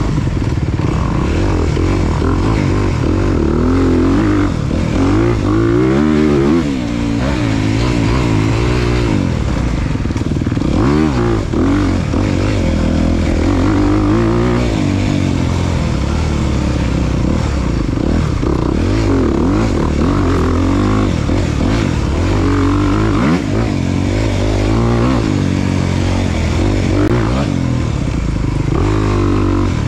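Off-road motorcycle engine running hard and revving up and down over and over as the throttle is worked, with no let-up.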